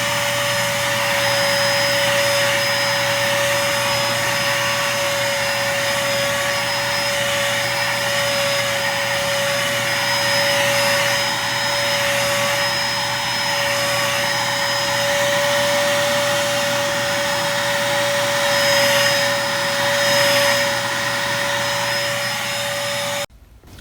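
Dirt Devil Featherlite bagless cyclonic upright vacuum cleaner running steadily on carpet, a motor whine over a rush of air, switched off near the end so the sound cuts off suddenly. No dirt can be heard rattling into the canister: it is not picking up, which the owner first takes for a broken belt.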